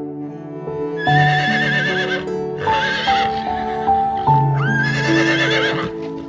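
A horse whinnying three times, each call about a second long with a high, quavering pitch, over gentle background music.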